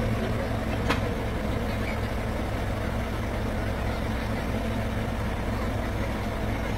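Heavy diesel truck engine idling steadily, with a single sharp click about a second in.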